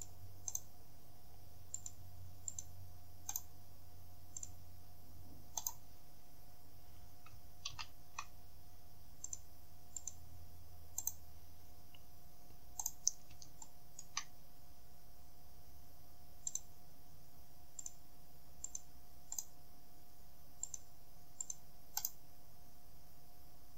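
Computer mouse button clicking at irregular intervals, single clicks and quick pairs, over a faint steady electrical hum.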